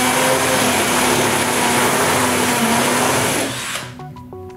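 Power drill boring an 8mm hole into a solid wall for a nylon wall plug, running at a steady pitch with its bit grinding into the masonry, then stopping about three and a half seconds in.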